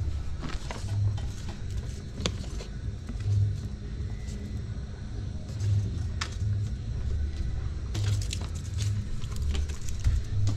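A low, uneven rumble with scattered light clicks and knocks as tomatoes are handled in a plastic vegetable rack.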